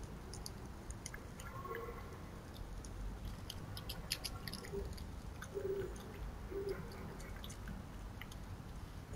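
Red fox chewing and crunching food, with sharp, irregular wet clicks of its teeth and jaws. A few short low calls sound in the background, one about every second or two.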